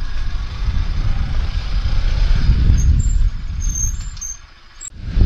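Motorcycle engine running at low speed while riding, heard as a heavy low rumble mixed with noise on the camera's microphone. It eases off and quietens about four seconds in, then comes back up suddenly near the end.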